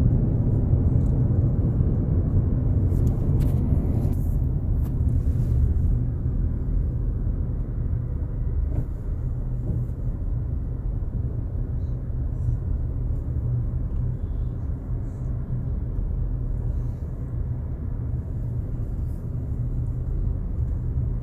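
Car moving at low speed, heard from inside the cabin: a steady low rumble of engine and tyres on the road. It drops a little about six seconds in.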